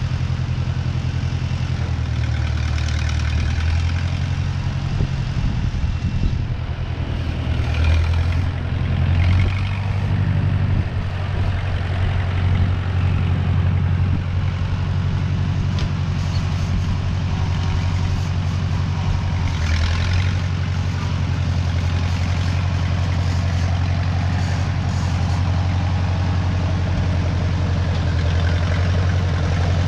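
Engine running steadily at low speed. Its pitch shifts slightly about 2–3 seconds in and again around 10 seconds, with short bursts of hissing noise around 8 and 20 seconds.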